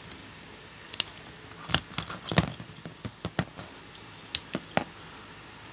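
Irregular sharp clicks and taps of a plastic marker pen and a small diecast model car being handled and set down on a tabletop, with a quick cluster of knocks about halfway through.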